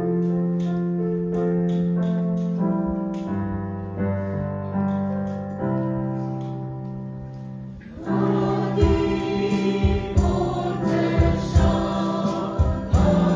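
Keyboard playing slow held chords as an introduction; about eight seconds in, a church choir comes in singing a Malayalam hymn over a beat of low thumps.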